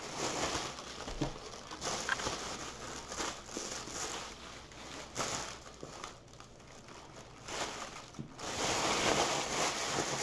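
Plastic packaging crinkling and rustling in irregular bursts as it is handled and unwrapped, with a few light knocks. The rustling is quieter for a couple of seconds past the middle and loudest near the end.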